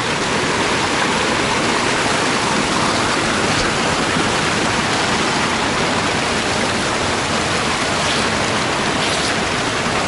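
Mountain river water rushing over rocks at a small waterfall: a steady, unbroken rush of water.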